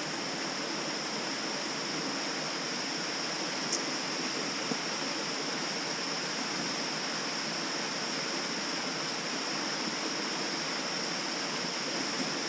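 Steady rush of a small waterfall and stream flowing, with a steady high-pitched insect drone over it.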